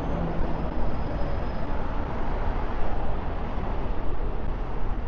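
City street traffic: a steady, deep rumble of vehicle engines and tyres.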